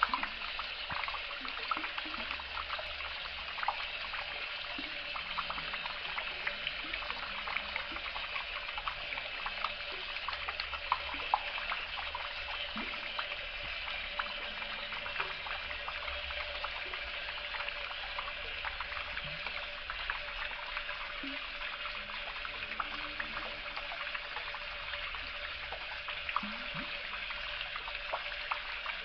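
Water running from a tap in a steady stream, splashing into a basin of standing water with many small droplet splashes.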